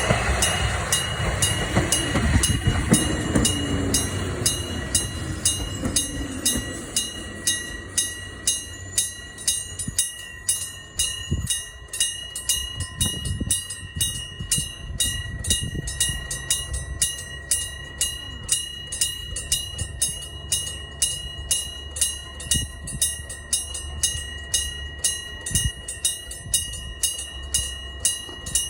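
Japanese level-crossing warning bell ringing with an even, repeating electronic clang. A Hokuriku Railroad Ishikawa Line train rumbles over the crossing in the first few seconds and fades away, leaving the bell ringing on its own.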